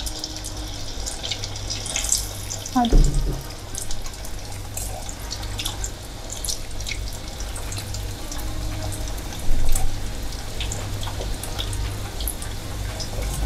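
Hot oil sizzling and crackling steadily as cheese-filled balls deep-fry in a stainless steel pot, turned now and then with metal tongs, over a low hum. A couple of brief louder sounds stand out, one about three seconds in and another past the middle.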